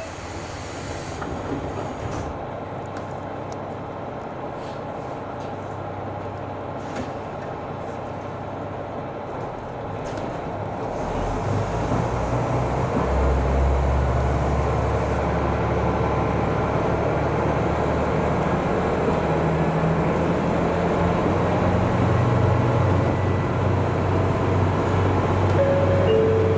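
KiHa 200 series diesel railcar heard from the cab as it pulls away. It runs quietly at first, then about eleven seconds in its diesel engine throttles up, running louder and deeper as the train gathers speed.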